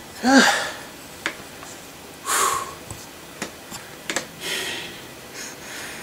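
A man breathing hard after straining with a tool: a short voiced sigh, then several heavy exhales, with a few faint clicks between them. He is out of breath from the effort.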